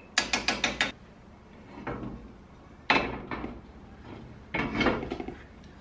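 Cookware knocks: a quick run of five sharp taps, like a spoon knocking ghee off into a cast iron grill pan. Then a single knock a few seconds in, and near the end a clattering scrape as the heavy cast iron grill pan is lifted and tilted on the gas stove grate.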